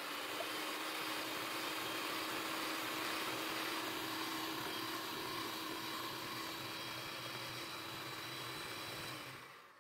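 Electric mixer whipping egg whites into a foam, its motor running steadily, then winding down and stopping near the end.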